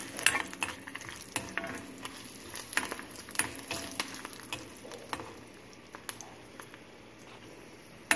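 Garlic cloves and dried red chillies sizzling in a little oil in an iron kadai, stirred with a steel ladle that clicks and scrapes against the pan. The sizzle grows fainter toward the end.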